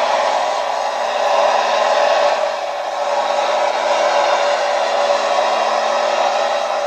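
Modified tractor-pulling tractor's engine running steadily at full throttle under load as it drags the weight sled, a loud continuous tinny roar.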